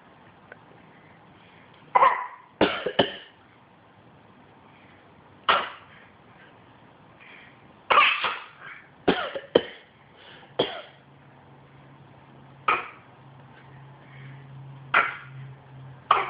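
Repeated short coughs, about a dozen, some single and some in quick pairs or threes, with pauses of one to three seconds between them: a person coughing and a pet copying the coughs.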